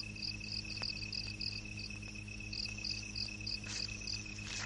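Crickets chirping in quick short pulses, about four a second, over a steady low hum.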